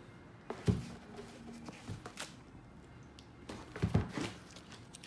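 Handling noise from a high-top sneaker and its shoe boxes being moved about: soft thumps about a second in and a cluster of knocks near four seconds, with light rustling between.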